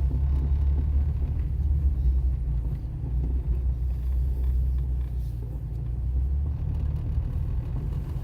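Car engine and road noise heard from inside a moving car's cabin: a steady low rumble that eases slightly about six and a half seconds in.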